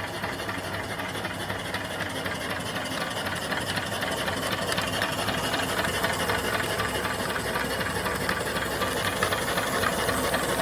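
A small 3 to 4 horsepower steam engine running steadily on its boiler: a fast, even mechanical beat with a hiss of steam.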